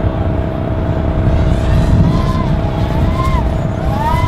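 250-size brushless FPV racing quadcopter's motors whining overhead as it flies fast. The whine rises and falls in pitch with the throttle over a steady low rumble.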